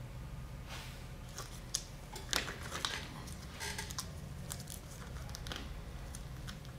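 Gloved hands handling a clamped, resin-wet carbon fibre wrap on a landing-gear part: scattered rustles, soft clicks and light taps, the sharpest about two and a half seconds in, over a steady low hum.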